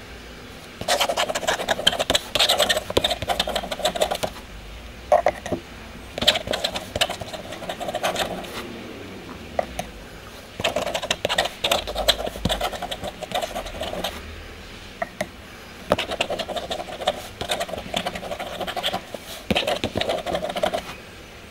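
A wooden dip pen scratching across paper in repeated quick passages a few seconds long, with short pauses between them.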